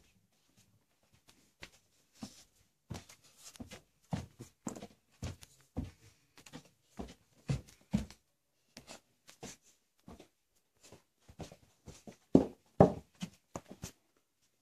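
Handling noise: a string of irregular taps, knocks and rustles as the dolls and props are moved about, with the loudest knocks near the end.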